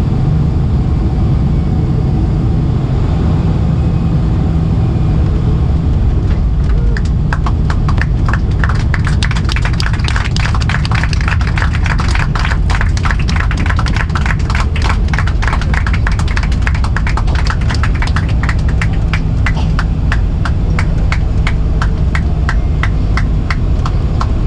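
Steady low rumble inside a Boeing 747-400's cabin as the jet rolls out on the runway after landing, engines near idle. From about six seconds in, a rapid run of sharp clicks and rattles joins it, thinning out toward the end.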